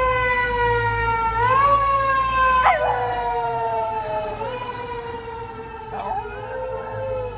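Fire engine siren wailing in long, slowly falling tones that swell back up several times, over the low rumble of the truck's engine, while a Shiba Inu howls along with it in short rising-and-falling calls.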